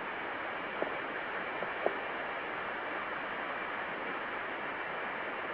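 Steady hiss of room tone and recording noise, with two faint short clicks about one and two seconds in.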